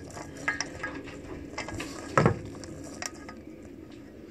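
A hand rubbing and mixing crumbly rock-bun dough in a metal bowl: scattered small clicks and scrapes against the bowl, with one louder knock about two seconds in.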